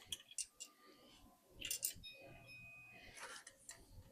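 Faint scattered clicks and light handling noises of bolts and hand tools, with a short scrape about one and a half seconds in.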